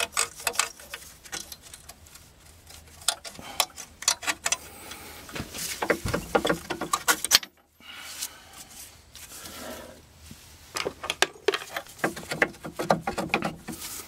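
Steel wire, fitted in place of a missing cotter pin, being worked back and forth and pulled out of a steel track-adjuster pin by gloved hands: quick metallic clicks and scrapes in spurts, with a brief break about halfway.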